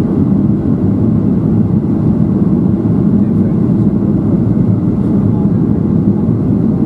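Steady low cabin rumble of a Boeing 737-700 in flight, the airflow and its CFM56-7B turbofan engines heard from inside the passenger cabin, during the descent to land.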